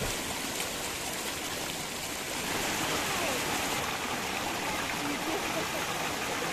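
A splash as a person drops into a river pool, then the steady rush of river water spilling over a small waterfall of mossy rocks, growing louder and brighter about two and a half seconds in.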